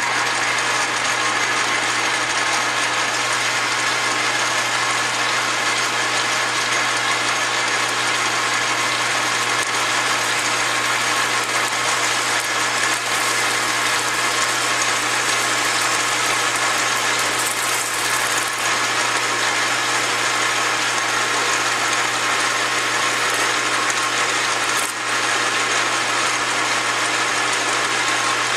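Metal lathe starting suddenly and running steadily with a busy gear-train whir and hum, as a high-speed steel tool bit turns a small radius on the end of a handle blank.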